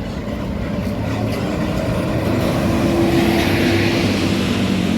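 A large road vehicle, typical of a bus, driving past: engine hum and tyre noise grow steadily louder, loudest near the end.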